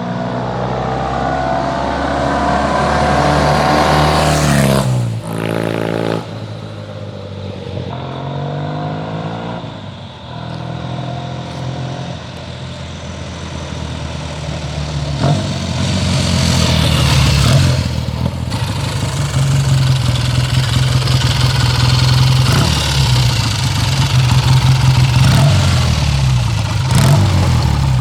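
1965 Triumph Trophy 650's parallel-twin engine being revved: the pitch climbs and drops sharply several times in the first dozen seconds. After a quieter spell it runs louder and fairly steady over the second half, with small rises and falls in pitch.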